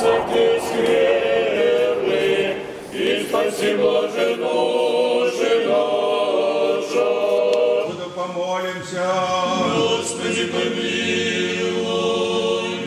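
Unaccompanied men's choir singing Russian Orthodox liturgical chant, several voices holding chords in harmony.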